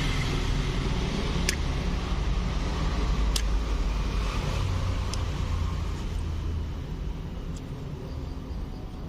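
Low rumble of a motor vehicle, slowly fading, with a few separate sharp clicks about two seconds apart.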